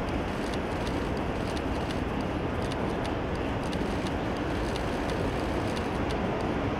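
Steady outdoor traffic noise, with faint quick clicks a few times a second.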